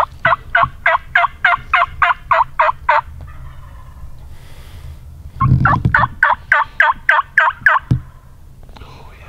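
Hen turkey yelping on a mouth call, loud and close: a fast run of notes, each falling in pitch, about three a second, stopping about three seconds in, then a second run of about nine notes from about five and a half seconds to about eight seconds in. This is aggressive hen calling meant to rile up the tom's hens and draw him in.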